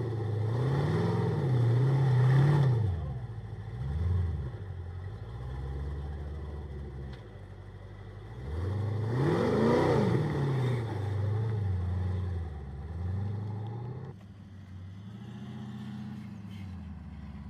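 Off-road rock buggy's engine revving up and down in repeated blips of throttle as it crawls up concrete slabs, the sharpest and loudest rev about halfway through. Near the end the sound changes abruptly to a quieter, steadier engine running.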